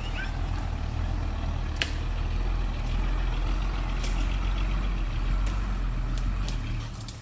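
Heavy diesel engine of earth-moving machinery running steadily with a deep rumble, falling away near the end, with a few sharp knocks over it.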